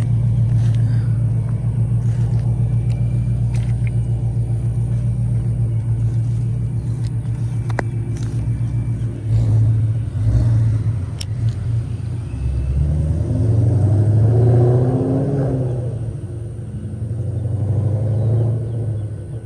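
A motor vehicle engine running, steady for about nine seconds and then rising and falling in pitch and level.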